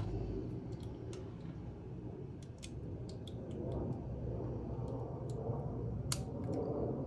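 Scattered light clicks and taps, about a dozen, the sharpest about six seconds in, over a steady low hum.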